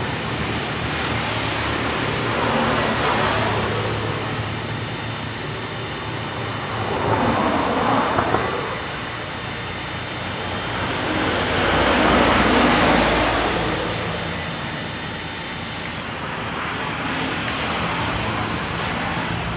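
Road traffic: a steady background rumble with three vehicles passing in turn, each swelling up and fading away over a few seconds.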